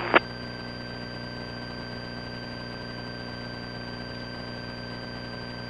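Small plane's engine droning steadily inside the cockpit, heard as an even, unchanging hum with a short click right at the start.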